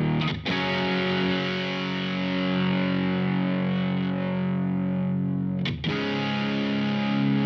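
Electric guitar, a Fender Jazzmaster with Seymour Duncan Antiquity pickups, played through the Mozztronics GD-1 Bone Breaker overdrive pedal with its knobs at noon: mildly overdriven chords left to ring. One chord is struck about half a second in and rings for about five seconds, and the next is struck about six seconds in.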